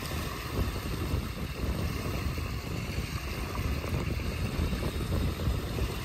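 Gusty wind buffeting the microphone over choppy water, with small waves breaking and lapping on a rocky shore.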